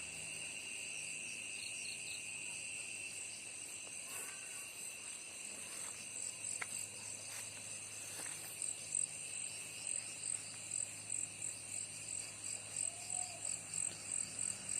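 Insects chirring steadily at a high pitch in a garden. About halfway through, an evenly pulsed chirp joins in, roughly two pulses a second.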